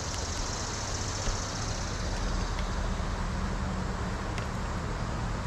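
Steady rush of shallow, riffling stream water. A low, steady engine-like hum comes in about two seconds in.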